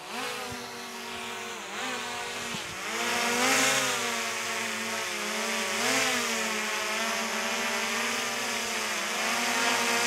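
Small camera drone's propellers buzzing close by, the pitch dipping and rising several times as it manoeuvres.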